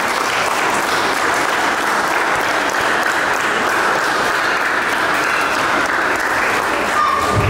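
Congregation applauding steadily, a dense continuous clapping of many hands.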